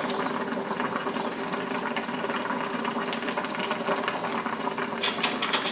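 Curry oxtail gravy boiling in a pot, a steady dense bubbling as it reduces.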